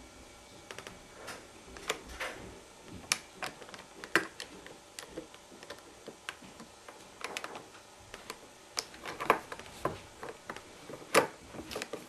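Irregular sharp metallic clicks and small scrapes from a double-locked East German handcuff being worked with a paperclip and wire, the loudest clicks standing out every second or two.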